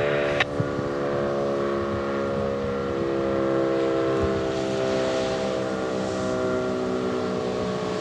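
Sentry 10V2T dual-tone outdoor warning siren sounding during a test: a steady, chord-like wail of two blended tones, holding at full level.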